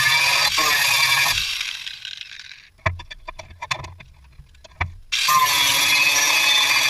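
Power grinder working the rebar knife blade, then switched off and winding down over about a second. A few sharp clicks and knocks of the piece being handled follow, and the grinder starts again suddenly and runs on.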